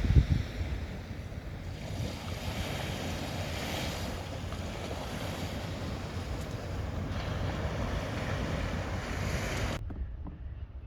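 Sea waves washing on the shore, with wind rumbling on the microphone; the sound cuts off suddenly near the end to a much quieter background.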